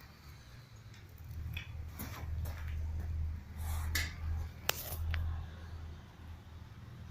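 Several light clicks and taps, the sharpest about two-thirds of the way through, over a low steady rumble.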